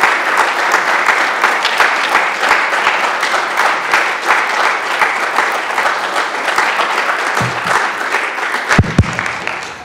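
Audience applauding: many hands clapping together in a steady dense patter that thins out and dies away near the end.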